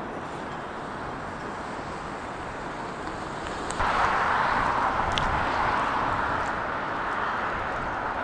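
Outdoor city traffic noise, a steady rumble and hiss. About four seconds in, a louder hiss sets in abruptly and slowly eases off.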